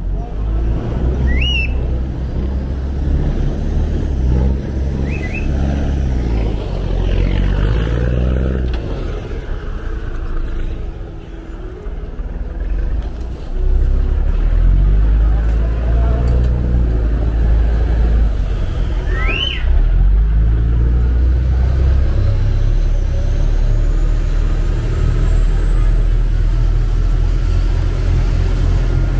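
Chao Phraya Express boat's diesel engine running loud and steady, easing off about ten seconds in and then opened up louder again around fourteen seconds in. A few short rising chirps cut through it, one near the start and one around twenty seconds in.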